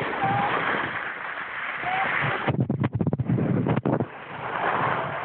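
Wind rushing over a phone microphone, with a stretch of rough, choppy buffeting about two and a half seconds in.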